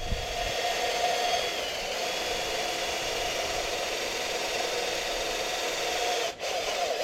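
Cordless drill driving a Warn portable drill winch, running steadily with a geared whine. It stops briefly about six seconds in, then starts again.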